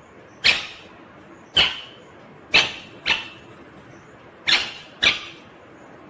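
Rose-ringed parakeet giving six short, sharp calls, each starting suddenly and fading quickly, the last two of them a pair about half a second apart.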